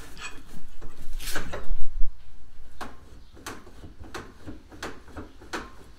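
Knocks and scrapes of steel steering parts, a tie rod and a spindle knuckle, being handled and moved on a metal-topped workbench. A busy run of clunks comes about a second in, then scattered single light knocks.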